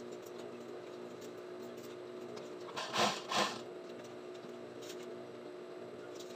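JUKI industrial sewing machine's motor humming steadily while the machine is not stitching, with two brief swishes of the curtain fabric being handled about three seconds in.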